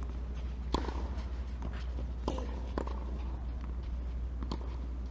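Tennis ball struck back and forth by rackets in a rally on a clay court: sharp single hits a second or two apart, four in all, over a steady low hum.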